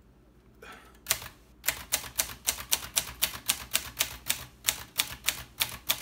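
1955 Groma Kolibri portable manual typewriter being typed, its keys struck in a steady run of sharp clacks, about four a second, starting about a second in, as the symbol characters are typed out.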